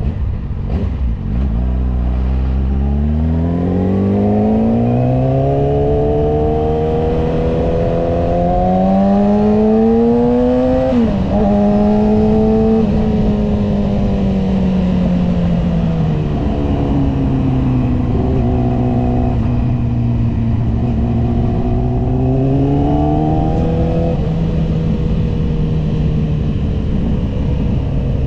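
Inline-four sport-bike engine through an Akrapovic exhaust, accelerating hard. Its pitch climbs steadily for about ten seconds, dips sharply at a gear change about eleven seconds in, falls as the throttle is eased, then climbs once more and drops back near the end.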